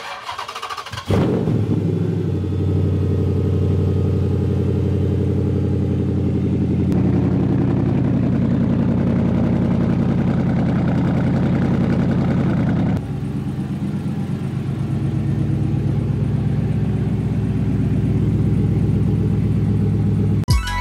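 A car engine starting after sitting for about a week: it catches about a second in and holds a fast, steady cold idle, which drops to a lower idle about 13 seconds in.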